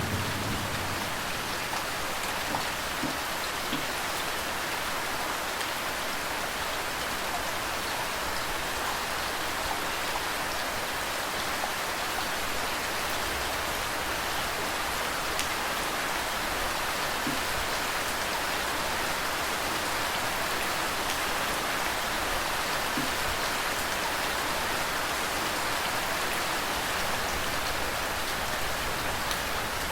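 Steady rain falling, an even hiss of drops on a surface. The tail of a low thunder rumble dies away within the first second.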